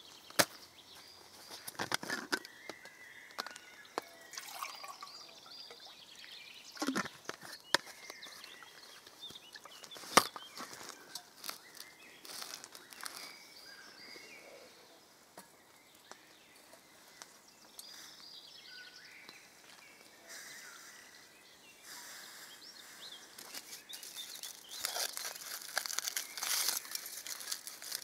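Woodland birds chirping in the background, over scattered clicks and knocks of camp gear being handled. A dense crinkling sets in near the end.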